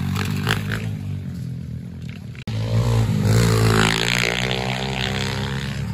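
Small pit bike engine revving as the bike rides the dirt track, its pitch falling over the first couple of seconds. After a brief dropout about halfway through, the engine revs up again, pitch rising and falling with the throttle.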